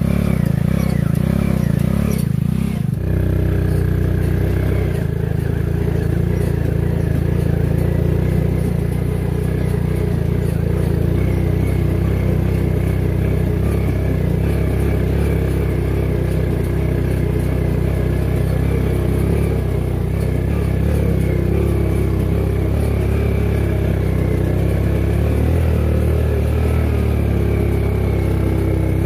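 Homemade four-wheel-drive ATV's old motorcycle engine running steadily under way. Its note changes about three seconds in, then holds.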